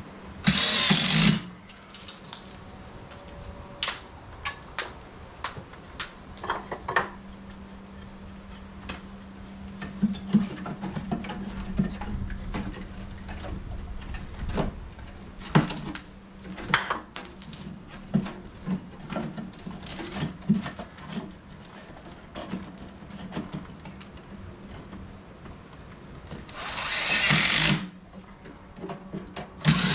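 Cordless drill driving screws to fasten wooden backing into a hole in a stucco ceiling, in two short runs, one about a second in and one near the end. Scattered knocks and clicks of handling come in between.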